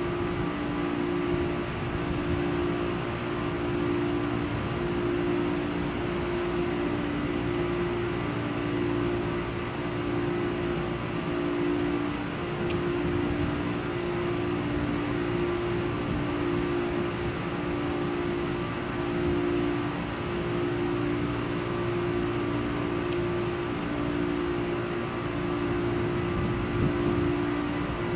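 Multirotor drone's propellers humming steadily, as heard from the drone itself, with two close pitches taking turns about once a second as the motors hold and shift position.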